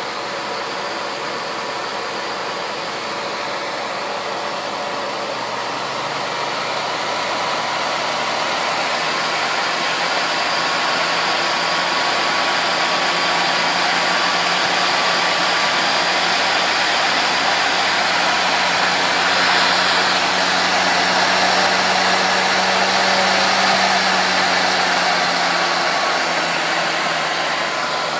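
A DC motor with a flywheel spinning up under PWM speed control: a steady whir with faint whining tones that grows gradually louder as the speed is turned up, easing off slightly near the end.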